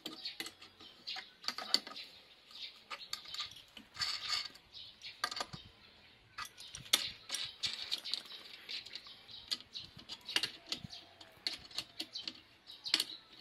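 Irregular metallic clicks and clinks of a core drill stand's base plate, bolts and nuts being handled and tightened by hand.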